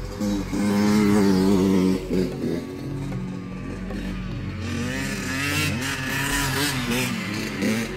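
Dirt bike engines running and revving, the pitch holding steady and then rising and falling repeatedly as the throttle opens and closes. Loudest in the first couple of seconds.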